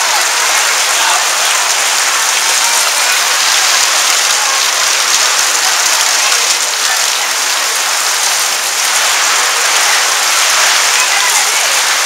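Torrential rain drumming on a canvas marquee roof: a loud, dense, unbroken hiss.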